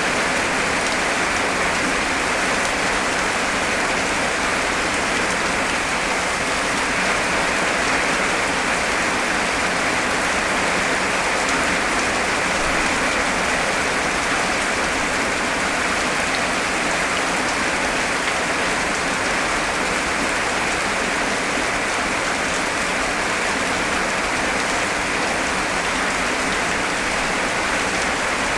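Heavy rain falling steadily, a dense, even hiss with no thunder.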